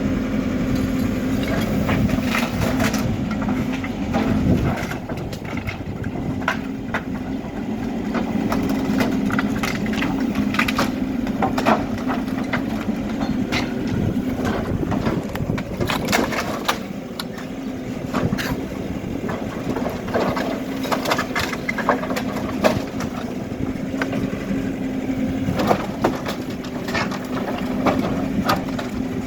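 HIDROMEK K4 Alpha backhoe loader's diesel engine running steadily while its bucket breaks up a building. Repeated cracking, crunching and splintering crashes of debris are heard throughout.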